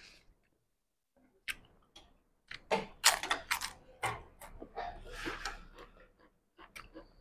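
Spoons and forks clinking and scraping against soup bowls during a meal: scattered sharp clicks starting about a second and a half in, several close together around three seconds in.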